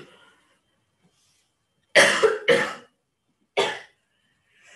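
A woman coughing: two loud coughs in quick succession about two seconds in, then a third about a second later.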